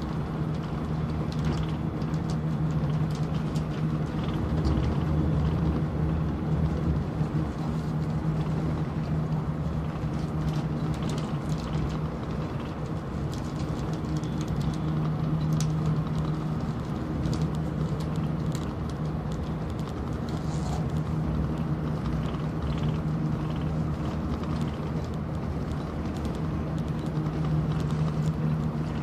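Running noise inside the cabin of an Airport Railroad Express train at speed: a steady rumble with a constant low hum.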